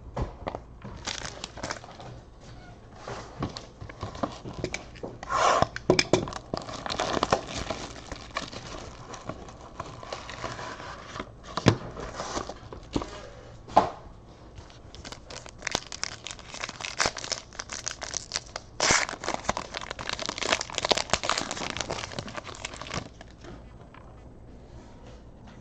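Trading-card packaging being torn open and crinkled, with rustling and light clicks as the cards are pulled out and handled; the busiest stretches come about five seconds in and again from about fifteen to twenty-three seconds.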